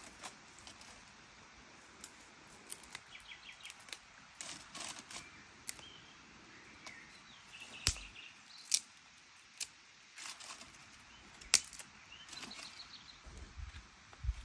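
Dry twigs snapped by hand into short pieces: an irregular string of sharp cracks, a few much louder than the rest.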